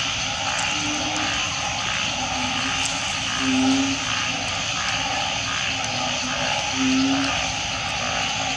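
Chorus of many frogs calling after heavy rain: a steady drone of overlapping calls, with short, low hooting notes repeating about once a second, loudest about three and a half and seven seconds in.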